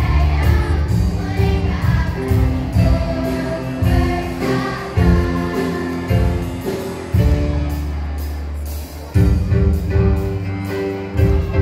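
Children's choir singing over music accompaniment with a strong bass line.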